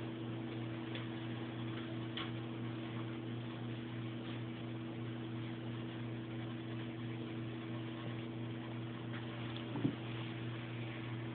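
Steady low hum, like an appliance or fan running, with a few faint ticks and one brief soft thump near the end.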